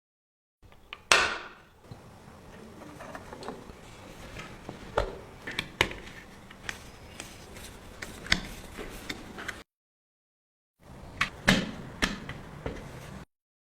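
Small hard clicks and taps of toy model car parts being handled and fitted, the sharpest about a second in with a brief ring. The sound cuts off abruptly twice.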